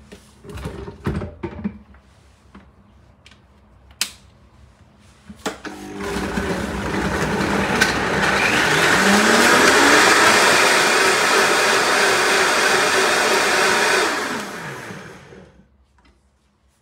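Countertop blender running for about nine seconds, blending orange, celery, citrus juice and water. Its motor pitch rises as it gets up to speed and falls as it winds down near the end. A few knocks come before it starts.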